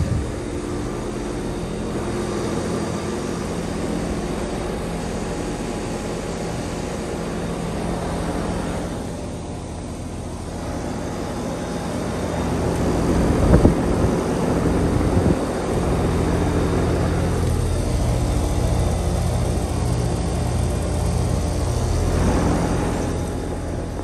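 Outdoor heat pump unit running in heating mode: a steady compressor hum with the outdoor fan, growing louder about halfway through, with two brief thumps in the middle.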